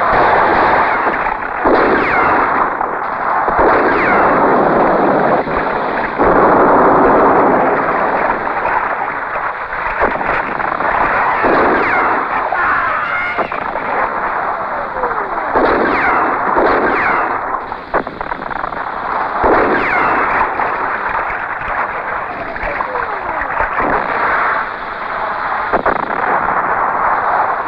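Film battle sound of continuous gunfire and explosions, loud and dense, coming in swells with sharp cracks scattered through it. Several falling whistles run over the din.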